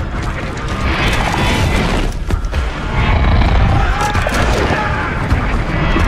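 Dramatic score mixed with heavy booms and crashing impacts, several sharp hits over a deep rumble.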